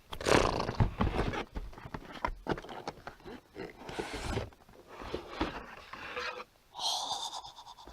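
Cardboard and plastic packaging handled close to the microphone: rustling and scraping with scattered knocks as the contents are pulled out of a box, and a short squeak about seven seconds in.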